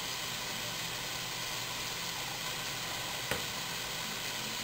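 Raw meat frying in a pan, sizzling steadily, with one brief click a little over three seconds in.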